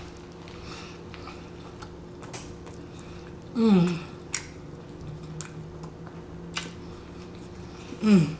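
Close-up chewing of a mouthful of smash burger, with small wet mouth clicks. Two short falling hums from the eater come about three and a half seconds in and again near the end.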